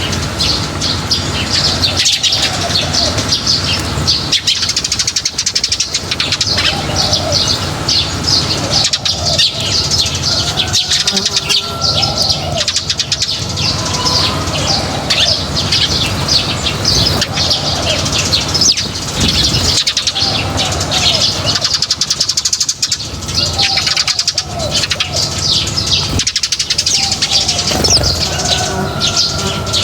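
A flock of small birds chirping continuously and densely as they feed, with many overlapping high chirps and repeated lower curved calls mixed in.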